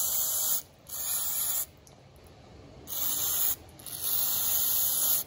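Aerosol can of mass airflow sensor cleaner hissing in short bursts as it is sprayed onto the sensing elements of a removed, dirty MAF sensor. There are four bursts with short gaps between them, and the last is the longest.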